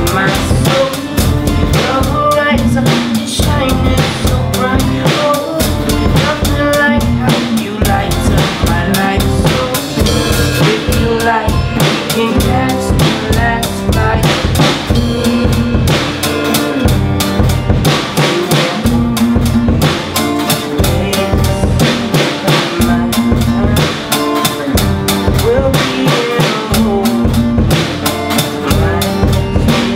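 A band playing live on drum kit, electric guitar and acoustic guitars, the drums keeping a steady beat.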